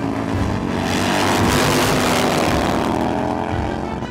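Two Harley-Davidson motorcycles at full throttle on a drag-strip run. The engines rise to a loud pass about a second and a half in, then fall in pitch and fade as they pull away.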